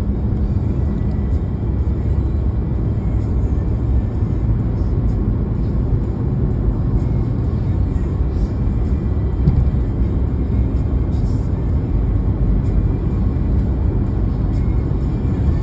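Steady low rumble of a car driving on the road, with music playing along with it.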